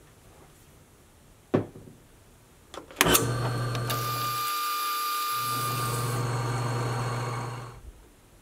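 A single click, then a drill press starts with a sharp clack about three seconds in and runs with a steady hum and a thin high whine for about five seconds while its twist drill works the top of a steel round bar, before winding down.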